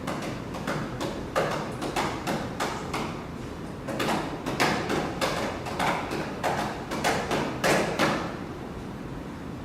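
A string of irregular knocks and thuds, roughly two or three a second, loudest in the second half.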